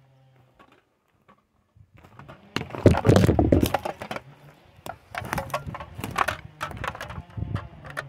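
Dry slash and branches cracking and crunching in a run of sharp knocks, loudest about three seconds in, after a felled tree has landed. A Stihl 500i chainsaw idles faintly near the end.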